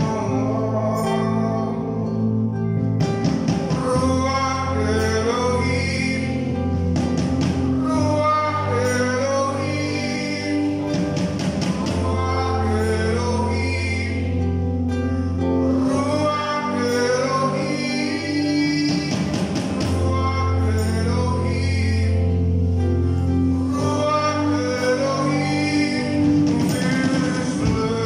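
Live gospel worship song: a man singing lead with women's backing vocals, over a nylon-string acoustic guitar and band accompaniment with long held bass notes.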